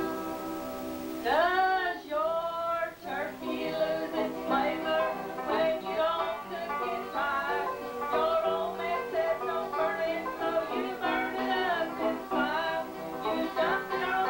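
Banjo and acoustic guitar playing a bluegrass-style country tune, with singing carrying the melody.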